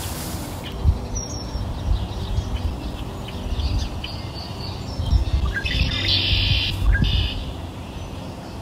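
Birds chirping in short high calls, busiest about six seconds in, over a low steady background hum.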